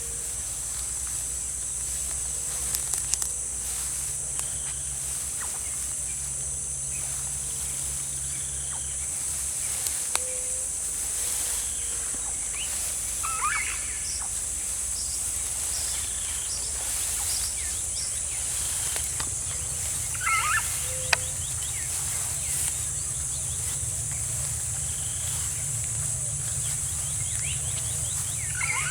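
Steady high-pitched insect chorus, with a few short bird chirps and a single sharp click about two-thirds of the way through.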